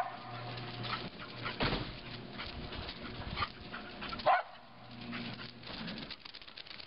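A dog barking several short barks, spaced irregularly, with the loudest at the start and a little past four seconds in.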